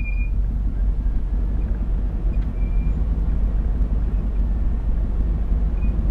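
Off-road 4x4 driving slowly over a rough dirt track: a steady low engine and road rumble, with a few faint short squeaks.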